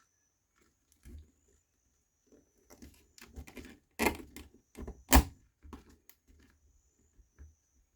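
Laser-cut wooden pieces being handled and pushed together, as a wooden retainer is pressed onto pins over the puzzle tiles: scattered light clicks and knocks, with two sharper knocks about four and five seconds in.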